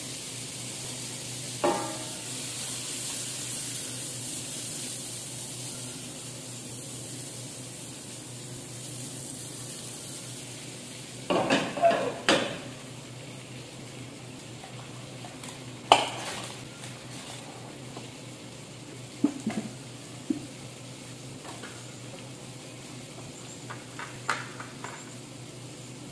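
Butter sizzling in a stainless wok on a gas burner, a steady high hiss that dies down after about ten seconds. Metal utensils clink against the wok and dishes now and then, a few at a time, with the loudest clink about two thirds of the way through.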